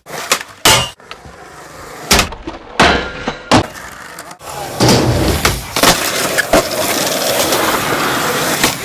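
Skateboard on concrete: sharp snaps and clacks of tail pops and wheels landing, in short bursts that cut off abruptly, then a steady rolling and scraping of wheels and trucks with more clacks.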